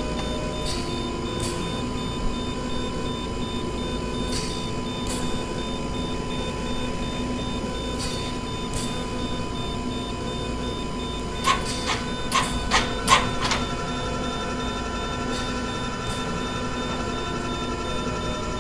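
Hospital machine ambience: a steady electronic hum with a held tone, soft clicks every few seconds, and a quick run of louder clicks a little past the middle, after which a second, higher tone comes in.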